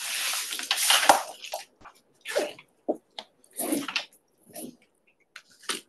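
Handling noise from the recording device being moved and repositioned: a long rustle on the microphone, then scattered shorter rustles and small knocks.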